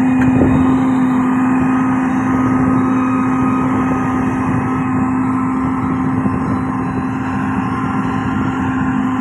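Heavy diesel road-construction machine running steadily, with a constant strong engine hum and no change in speed.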